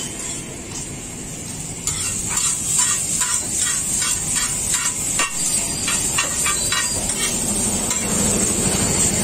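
Two metal spatulas clanking and scraping on a flat iron griddle as fried chowmein noodles are tossed and chopped, in quick repeated strikes of about three a second, over a steady high hiss.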